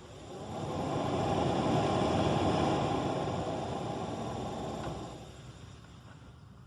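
Peugeot 307 heater blower fan running, a steady rush of air. It swells up within the first second and dies away about five seconds in.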